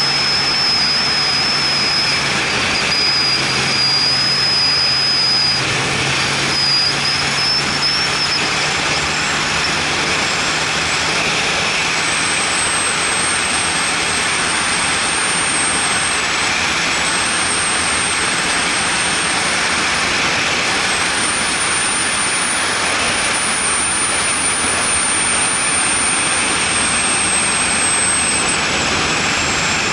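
Vehicle driving at speed on an open road, heard from an outside-mounted camera: a steady rush of wind and road noise. A low engine hum fades out about twelve seconds in, and a thin high whistle runs throughout, jumping higher in pitch at about the same time.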